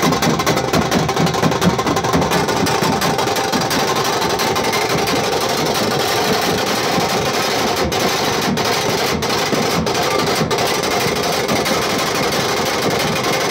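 A troupe of large double-headed barrel drums beaten with sticks in a fast, dense teenmaar rhythm.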